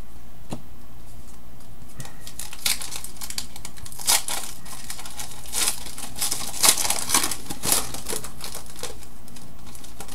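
Trading-card pack wrapper crinkling as it is handled and opened, in a run of sharp crackles from about two and a half to eight seconds in.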